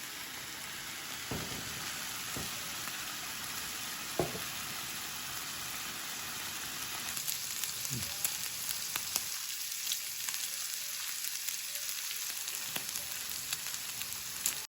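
Sliced pork belly sizzling in a frying pan: a steady hiss of frying fat with a few soft knocks, and more frequent spitting pops in the second half.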